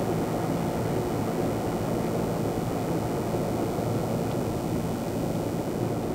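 A steady low rumble with a faint hum under it, unchanging throughout.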